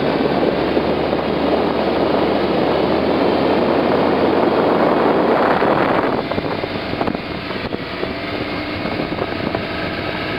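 Four-cylinder Chevrolet inboard engine of a motorboat running under way, its crankcase filled with vegetable oil instead of motor oil, mixed with wind and rushing water. About six seconds in the noise drops noticeably, leaving a steadier engine hum.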